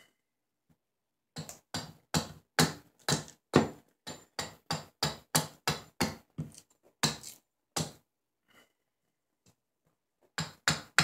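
Small carving hatchet chopping into a sycamore spoon blank resting on a wooden chopping stump, roughing out the spoon: a run of sharp chops, two or three a second, that stops about eight seconds in and starts again near the end.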